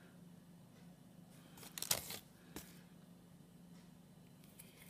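Faint handling noise as hands move a fondant-covered gingerbread cookie and its sugar-paste pieces: a brief rustle about two seconds in, a smaller one just after, and a few light scrapes near the end, over a low steady hum.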